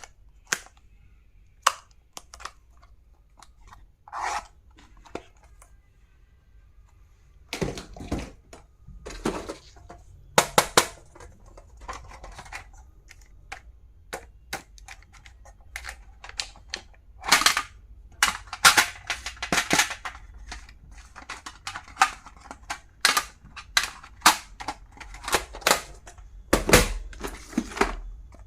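Stationery being unpacked and handled: plastic packaging rustling and crinkling, with many sharp clicks and taps, sparse at first and busier from about a third of the way in.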